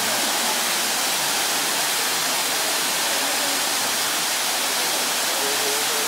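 Tall waterfall pouring down a rock face into a plunge pool: a steady, even rush of falling water.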